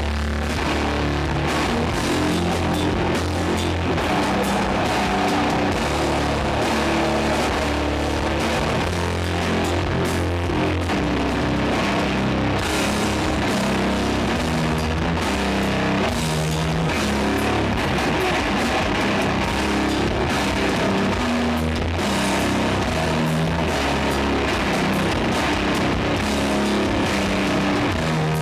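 Live doom metal band playing: heavily distorted, down-tuned guitars and bass holding slow low chords, with drum kit hits and cymbals, recorded loud and dense from the audience.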